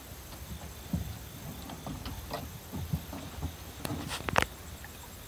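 Scattered thumps and knocks of boots and gear on an aluminium boat deck, with a sharper scrape and clatter about four seconds in.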